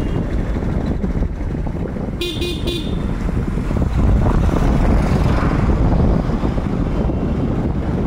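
Road traffic under the bridge with a steady low rumble. A vehicle horn gives three quick short toots about two seconds in, and a vehicle passes louder from about four seconds in.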